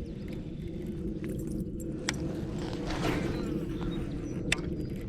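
Wind rumbling on the microphone, with two sharp clicks about two seconds and four and a half seconds in.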